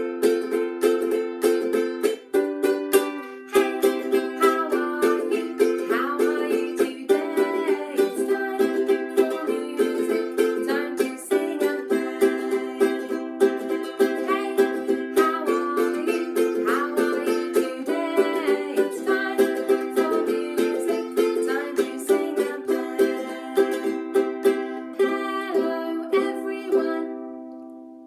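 Ukulele strummed in a steady rhythm, playing a run of chords. Near the end the strumming stops and the last chord rings out and fades.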